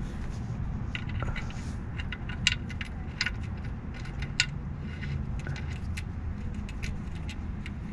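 New steel drain plug being threaded by hand into the oil pan of a Mercedes W126 300SD: irregular small metallic clicks and scrapes, a few a second, over a steady low rumble. The plug is not turning smoothly, which the owner puts down to someone over-tightening it before.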